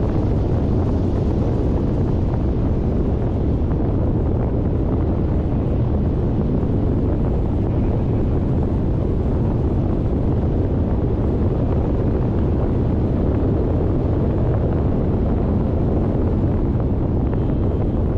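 Steady wind buffeting the microphone over a low road rumble, as from a camera held at the window of a moving car.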